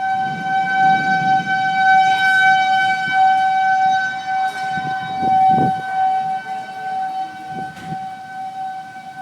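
Outdoor warning siren, of the kind used for tornado warnings, sounding one steady, held tone, with a low rumbling noise beneath it.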